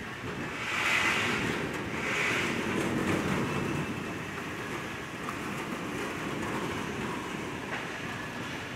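Mango washing machine with a brush washing unit running: steady mechanical rumble with rushing water noise, and two short hissing surges about one and two seconds in.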